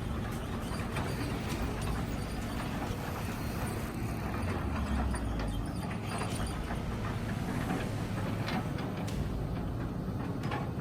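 Heavy earthmoving machine running steadily, with scattered knocks and clanks.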